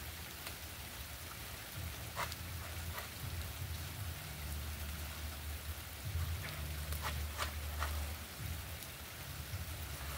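Light rain falling steadily, with a few scattered sharp ticks and a low rumble that comes and goes.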